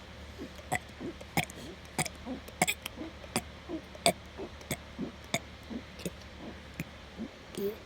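A young child swallowing air to make himself burp: a string of sharp gulping clicks about every two-thirds of a second, with short low burps between them.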